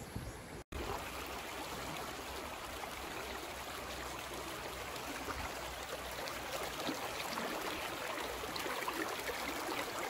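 Shallow mountain creek running over rocks: a steady rushing of water. It cuts out for an instant near the start and then continues evenly.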